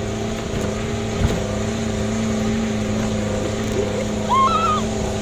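Open off-road jeep's engine running steadily under load while it carries passengers up a forest track. A single knock sounds about a second in, and a short high rising cry near the end.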